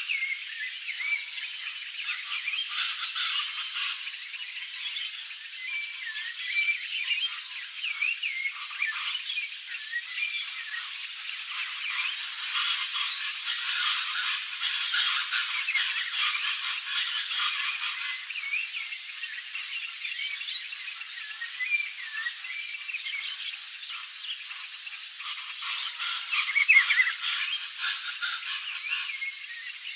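Dense, continuous chorus of many small calling animals: overlapping chirps, trills and clicks, all high-pitched with nothing low in it.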